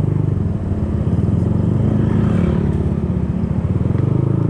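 Yamaha Aerox 155 scooter's single-cylinder engine running under way, a steady low, rapid pulsing with its pitch shifting slightly as the rider eases the throttle.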